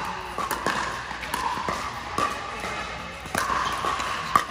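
Pickleball paddles striking a plastic pickleball in a rally: a series of sharp pops at uneven intervals, the two loudest late on.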